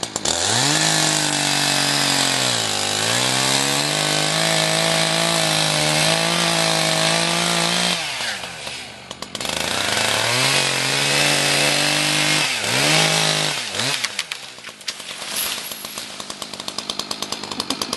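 Two-stroke chainsaw cutting into a eucalyptus trunk: it revs to full throttle and holds, its pitch dipping about three seconds in, drops back to idle around eight seconds, then revs up again for a few seconds before settling to a fast idle putter near the end.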